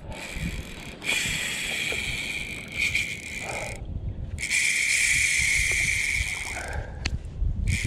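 Fishing reel drag buzzing as a big giant herring pulls line off against it, in two long runs of a few seconds each with a short break between.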